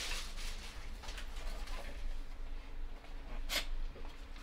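Faint rustling and handling noises of a cup noodle container and its sachets being turned over, with one short sharper rustle about three and a half seconds in, over a low steady hum.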